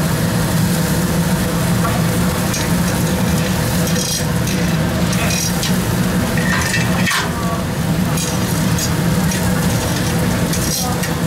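Food sizzling on a grill, with scattered clinks of utensils and dishes over a steady low hum.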